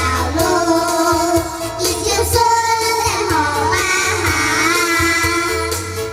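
Children singing a song over backing music with a steady low beat.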